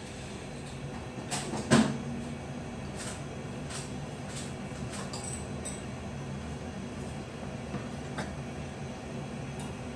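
Dollar pancakes frying in oil in a skillet: a steady sizzle over a low hum, with a sharp knock about two seconds in, like a cupboard door, and a few lighter clicks after it.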